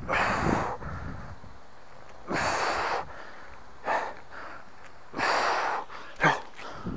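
A man breathing hard through the mouth under the effort of kettlebell overhead squats. There are three long, forceful breaths about two and a half seconds apart, with shorter, sharper breaths between them.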